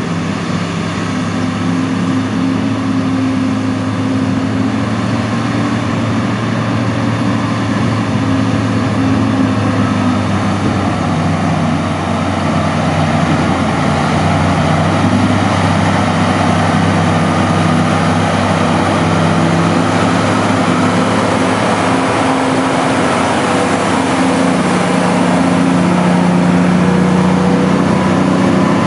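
Komatsu HD785-5 rigid dump truck's V12 diesel engine running under way, with a deep, steady engine note whose pitch shifts a little. It grows gradually louder as the truck approaches.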